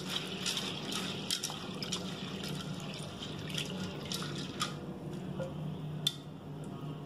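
Chana dal being washed by hand in an aluminium bowl: water sloshing as fingers rub and stir the lentils, with many small splashes and clicks of grains. A low steady hum runs underneath.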